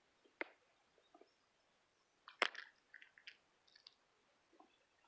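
A few faint, sharp clicks and knocks of fishing tackle being handled: one about half a second in, a louder cluster around the middle, then a couple of small ones.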